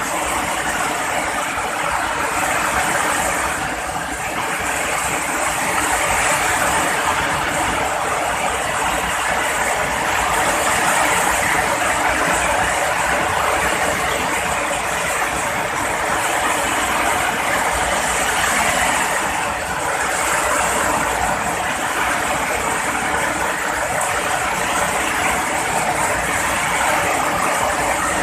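Heavy rain pouring steadily, an even hiss of dense rainfall that swells and eases slightly.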